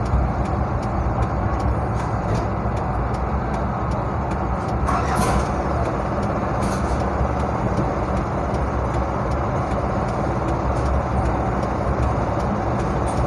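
Steady low rumbling noise, like a running engine or traffic, with faint regular ticking and a brief hiss about five seconds in.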